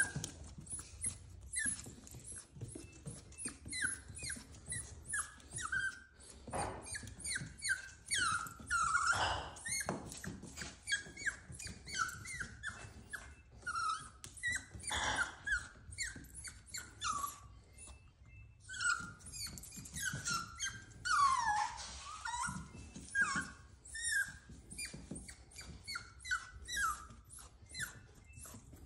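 Cavalier King Charles Spaniel puppy whining and crying over and over, short high cries one after another with a few longer, louder ones, out of fear of going down the stairs.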